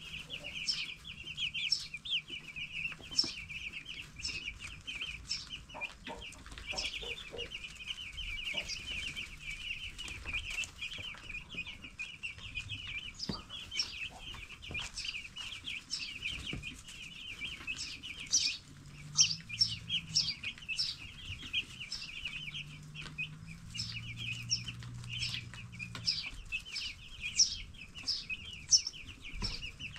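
A brood of ten-day-old broiler chicks peeping without pause, many short high chirps overlapping, with frequent sharp taps scattered through it.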